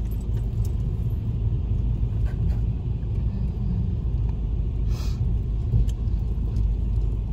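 Low, steady rumble of a car driving slowly, heard from inside the cabin, with a brief hiss about five seconds in.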